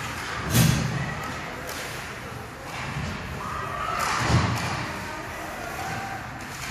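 Ice hockey rink boards being hit: two loud, heavy thuds about four seconds apart, over steady arena background noise.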